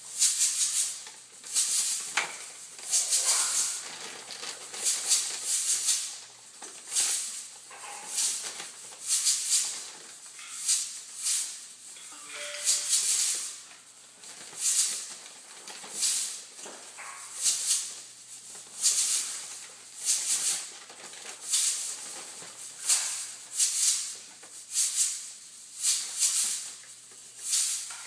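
A plastic bag of cereal crinkling and rattling in repeated short bursts, roughly once a second, as a small child's hands dig into it.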